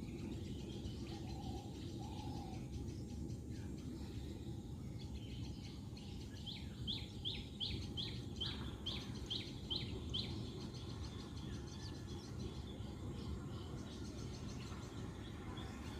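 Birds calling and chirping in a morning chorus; midway one bird gives a quick series of about ten short, rising, high notes, roughly three a second. A low steady rumble runs underneath.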